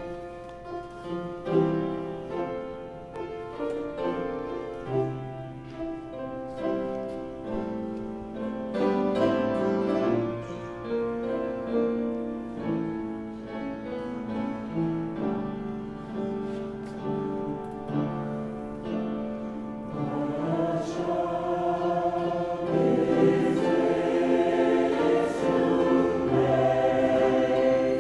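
Upright piano playing a slow introduction of separate notes. A choir comes in singing about two-thirds of the way through, and the music grows louder.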